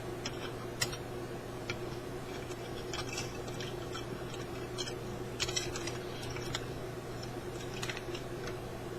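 Scattered small clicks and ticks of parts being handled over a steady electrical hum, with a quick cluster of clicks about five and a half seconds in.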